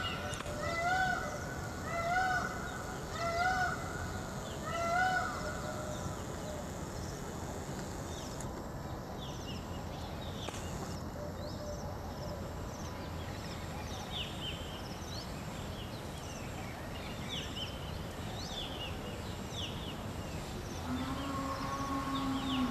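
Indian peafowl calling: a series of four or five loud, honking calls about 1.3 s apart, then faint short chirps of small birds. Near the end a lower, held call begins.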